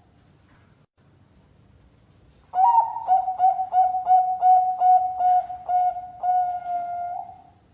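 Bangkok-line zebra dove (perkutut) cooing one full song phrase about two and a half seconds in: an opening note, a quick run of about a dozen short even coos, then a longer drawn-out final coo that fades away.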